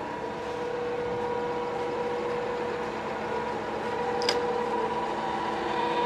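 Zbrojovka BK-5 external cylindrical grinding machine running, with no grinding taking place: a steady hum with a few held tones. A single short click comes about four seconds in.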